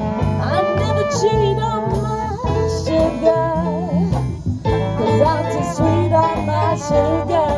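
Live traditional jazz band playing, with a woman singing over strummed banjo, a double bass line and trombone, trumpet and clarinet.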